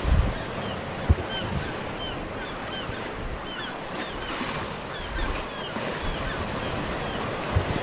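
Sea ambience of waves washing, steady throughout, with many faint short high calls over it. A single sharp knock about a second in.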